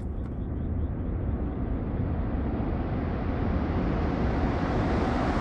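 A Shinkansen bullet train approaching at speed: a rushing noise that grows steadily louder and brighter as it closes in.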